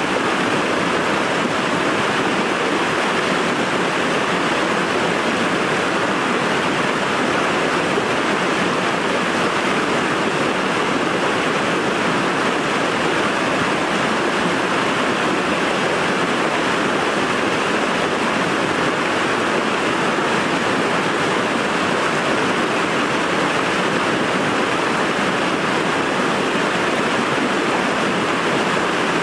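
Whitewater of a rocky river cascading into a pool: a steady, even rush of water with no let-up.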